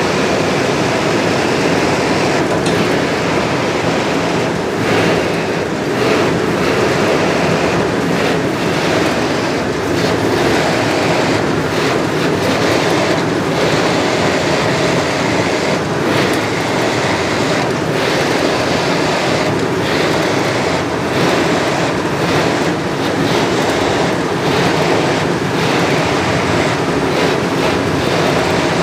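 A workshop machine running steadily with a loud, continuous mechanical rattle and rumble.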